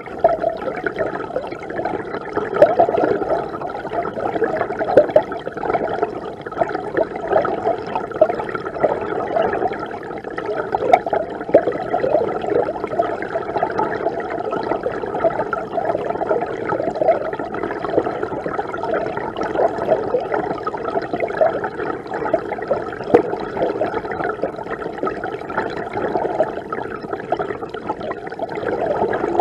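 Mountain river water heard from inside the stream: a steady, dull rushing and gurgling, with small irregular bubbling peaks and little hiss in the highs.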